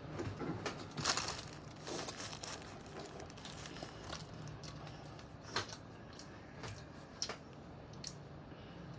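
Thin clear plastic bag crinkling as hands rummage in it: irregular rustles, loudest about a second in, then a few sharper crackles later.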